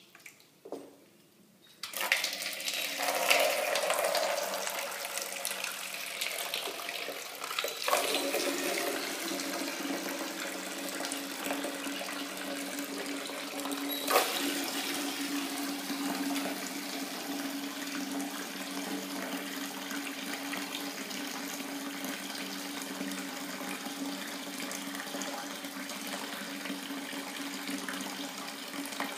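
Water from a wall tap pouring in a thin stream into a plastic bucket as it fills, running steadily from about two seconds in. The tap is being run to flush biofilm out of the pipe. There is a single short knock about halfway through.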